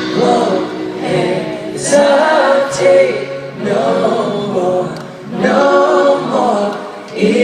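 Live pop music: several voices singing together in phrases broken by short pauses.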